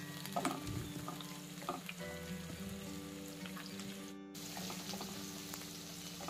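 Sliced onions sizzling in hot oil in a nonstick pan, stirred with a plastic spatula that scrapes lightly against the pan a few times, with background music.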